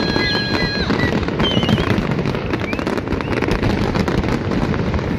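Fireworks display bursting and crackling in a dense, continuous barrage of rapid pops, with high whistling tones over it in the first two seconds.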